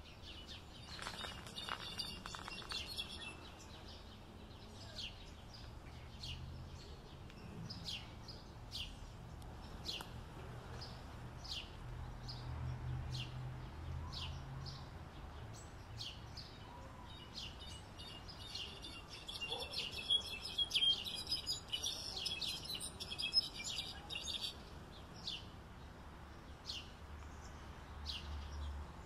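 European goldfinch singing: a burst of rapid, twittering high song about a second in and a longer, louder one from about 18 to 24 seconds, with short high chirps repeating about once a second between them, over a faint low background rumble.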